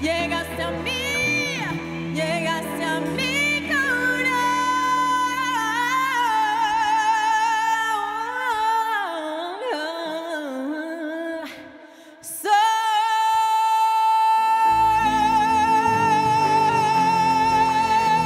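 Female vocalist singing live with a band, her voice swooping and wavering with vibrato. About halfway the backing thins out and after a brief dip she comes in sharply on one long high note with vibrato, the band's low end returning under it.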